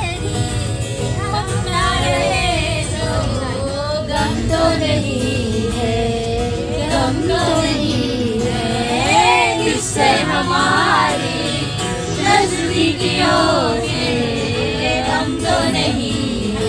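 A group of young women and a man singing a song together to a strummed acoustic guitar.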